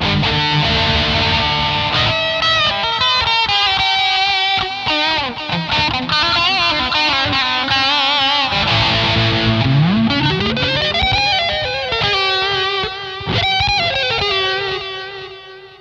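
Electric guitar lead played through a Zoom G2.1u multi-effects pedal with a Boss GE-7 graphic equalizer switched on: sustained single notes with vibrato, a long slide up the neck about two-thirds of the way through, and the last notes ringing out and fading near the end.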